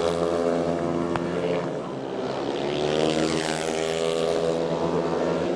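Several speedway motorcycles' 500 cc single-cylinder engines racing, the engine note dipping about two seconds in and then rising again as they rev back up.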